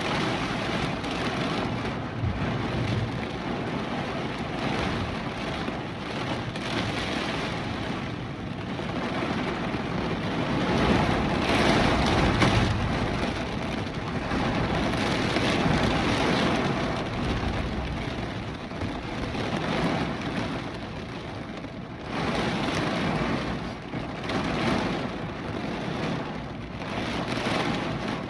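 Hurricane rainstorm: heavy, steady rain with gusting wind that swells and eases, loudest about halfway through.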